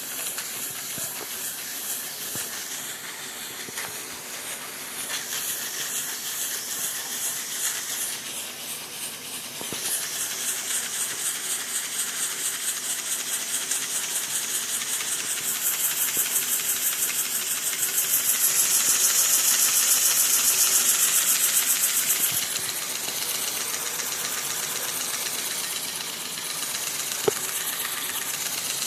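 Miniature steam engine running, hissing steam with a fast, even chuffing pulse. The hiss grows louder through the middle and drops back suddenly about three quarters of the way in. There is a single sharp click near the end.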